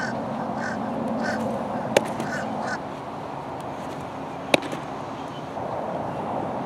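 A pitched changeup smacks once into the catcher's mitt about four and a half seconds in, over steady outdoor background noise. Before that a bird calls repeatedly, about three times a second, and a single sharp click comes about two seconds in.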